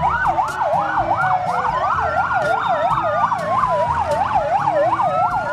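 Fire engine sirens sounding together: a fast yelp sweeping up and down about three times a second over a slower wail that rises and falls.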